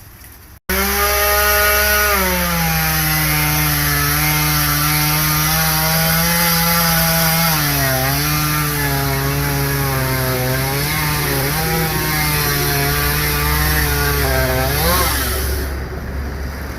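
Two-stroke chainsaw running at high speed and cutting through wood. Its pitch sags and wavers as the chain loads up in the cut, rises briefly near the end, and then the sound drops away. The sound begins abruptly about half a second in.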